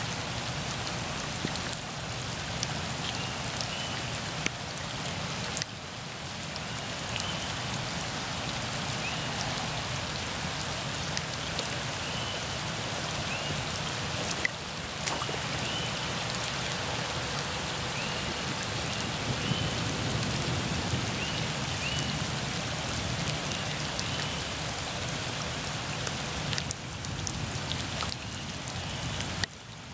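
Steady rain falling on shallow floodwater and soaked ground, with scattered drop clicks; a faint, short, high chirp repeats about once a second.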